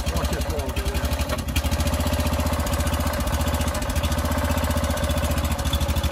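Small engine running steadily with a fast, even beat, driving the machine that jacks a settled brick wall up and back on its foundation piers.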